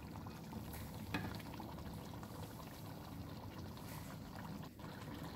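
Goat trotters cooking down in their spiced masala in a pot, faintly simmering and sizzling, with a couple of light clicks from the metal spatula, about a second in and near the end.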